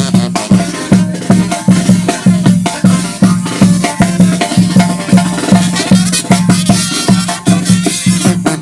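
Brass band music with a steady beat: tuba bass notes and drum hits about twice a second.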